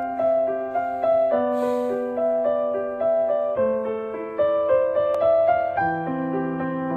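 Background music: a gentle keyboard tune of repeated notes over chords that change every two seconds or so.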